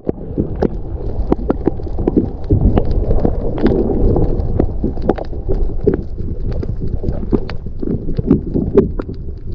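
Water heard through a submerged camera: a muffled low rumbling and sloshing with many short, sharp clicks and knocks scattered irregularly throughout.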